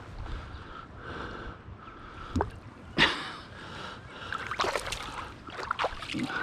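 River current running steadily through the shallows, with two sharp knocks about two and a half and three seconds in, and splashing in the water around five and six seconds in.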